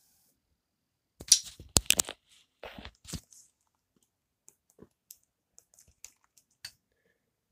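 A loud burst of rustling, crackling handling noise with knocks, lasting about two seconds, followed by a handful of faint, spaced clicks of a TV remote's buttons.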